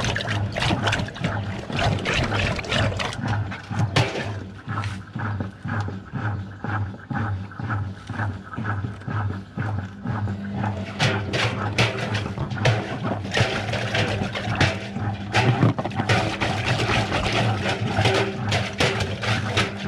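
Washing machine running with balloons inside: a steady motor hum pulsing a few times a second, water sloshing, and many short knocks and rattles, which come thicker in the second half.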